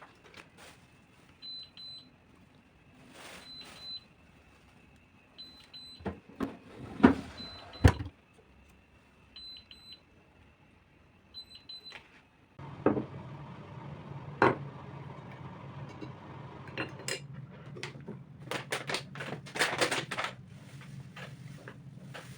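A kitchen appliance beeping: short high beeps repeat about every two seconds, with a few sharp knocks of things being handled. Just past halfway the beeping stops, and a steady low appliance hum starts suddenly and carries on under more clattering.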